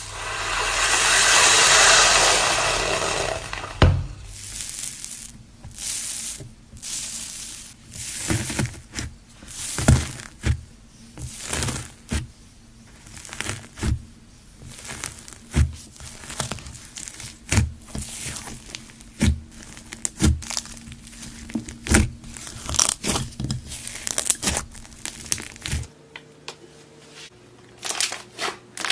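Slime being squeezed and pressed. A broad crackling hiss swells and fades over the first few seconds, then comes a long run of irregular sharp pops and clicks, one or two a second, which die down near the end.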